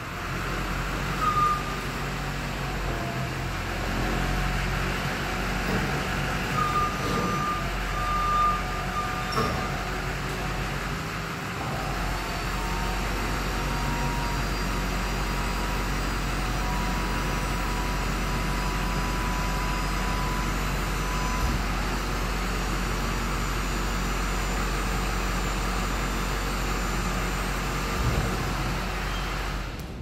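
Chevrolet C5500's Duramax 6.6-litre V8 turbo-diesel engine running steadily at idle. A faint high steady tone sounds now and then over it.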